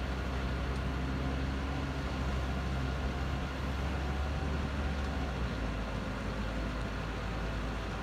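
Truck-mounted crane's diesel engine running steadily while the crane holds a cut pine tree aloft, its low drone changing about five and a half seconds in.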